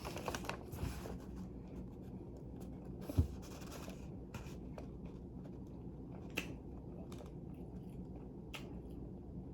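Faint scattered clicks and a brief rustle of small objects being handled, with a soft thump about three seconds in, over a low steady room hum.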